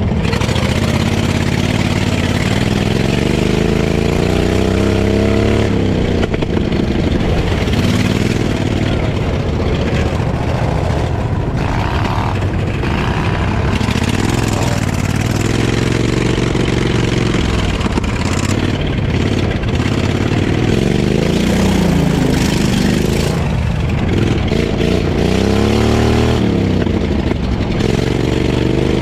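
Off-road lawnmower's engine revving up and down, its pitch climbing and falling again every few seconds.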